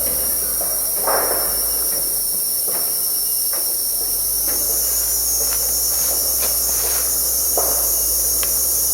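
Steady high-pitched drone of a tropical forest insect chorus, with a second buzzing layer growing louder about four and a half seconds in. A few brief, fainter sounds come and go beneath it.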